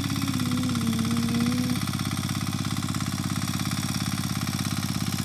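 A mini power tiller's Kama 9 hp single-cylinder diesel engine running steadily under load as it tills wet ground, with a fast, even chugging. A faint wavering tone sounds over it for the first couple of seconds.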